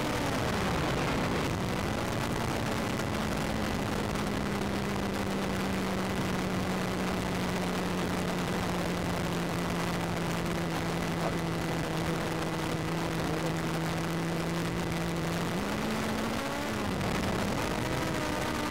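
An engine running with a humming tone over a steady rushing noise. Its pitch drops sharply about a second in, settles, slowly sinks, and wavers briefly near the end.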